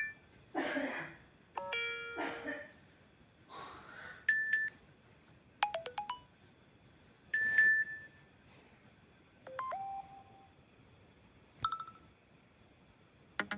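iPhone 7 Plus alert tones played one after another: short electronic chimes and beeps, a few of them falling in pitch, with a couple of brief swishing whooshes among them. There is a new tone every second or two, with a short quiet gap between each.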